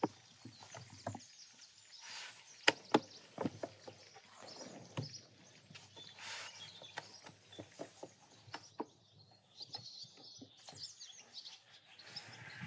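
Long thin wooden rolling pin knocking and rolling on a round wooden board as dough is rolled out thin, giving irregular sharp wooden clicks and knocks, the two loudest close together about three seconds in. Birds chirp in the background, mostly in the second half.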